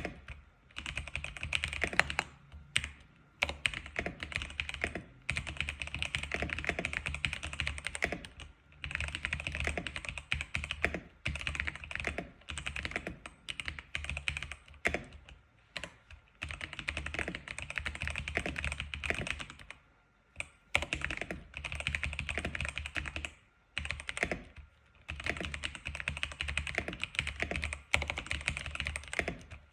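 Typing on an X87 keyboard: quick runs of key clicks broken by a few short pauses.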